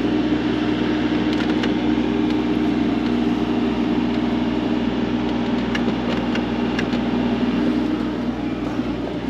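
Engine of a compact construction machine running steadily at a constant speed, with a few faint clanks over it. The steady hum eases off a little near the end.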